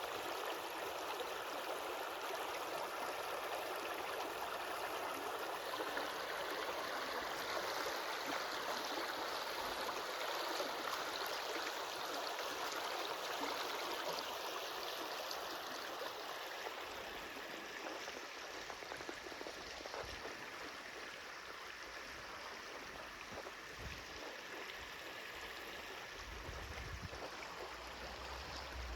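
Stream water flowing in a steady rushing babble that eases slightly in loudness past the halfway point. A few faint low thuds come near the end.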